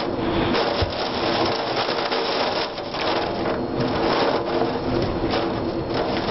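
Steady roar of storm wind and rain, rising and falling in gusts, with a low steady hum underneath.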